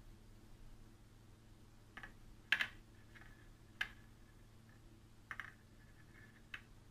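About six short, dry clicks and rustles from hands handling a plastic drinking straw and fishing line as a knot is tied, the loudest about two and a half seconds in.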